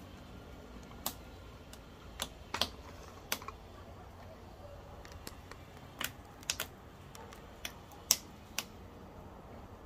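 Firewood crackling in a wood-burning stove: sharp, irregular pops and snaps, about a dozen, the loudest a little past eight seconds in, over a low steady background.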